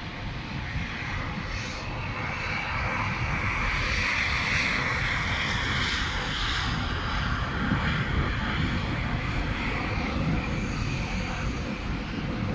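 Blizzard wind blowing in gusts, buffeting the microphone low down, with a hiss that swells through the middle and eases off again.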